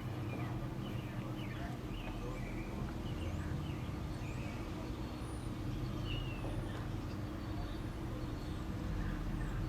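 Birds chirping and whistling now and then over a steady low hum of several level tones. The siren is silent.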